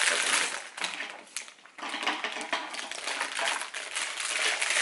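Clear plastic wrapper crinkling and rustling as it is handled and pulled open, with a brief pause about two seconds in.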